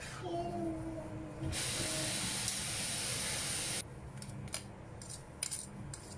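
A steady hiss lasting a couple of seconds that starts and stops abruptly, then a fork clicking against a bowl several times as mashed grilled eggplant is stirred into beaten egg.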